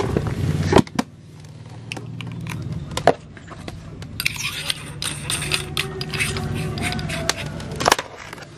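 Handling noise from a condenser shotgun microphone having its single 1.5 V AA battery fitted: sharp clicks and scraping and rattling of the battery cap and mic body, over a low steady hum.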